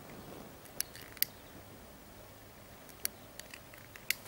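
A cigarette lighter being struck to light cigarettes: four short, sharp clicks at uneven intervals.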